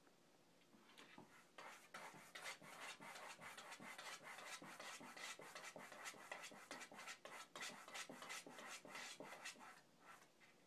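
A Pixie-bob cat clawing at a shut wooden door: rapid rasping scratch strokes, about four or five a second, starting about a second in and stopping near the end.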